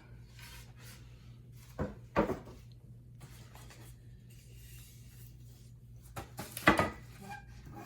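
Wooden beehive roof pieces being handled and set down: a couple of knocks about two seconds in, another near the end, with rubbing and scraping between.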